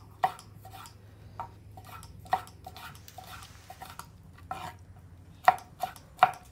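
Kitchen knife cutting ripe tomatoes into small cubes on a wooden cutting board: a dozen or so separate knocks of the blade on the board at an uneven pace, closer together and louder near the end.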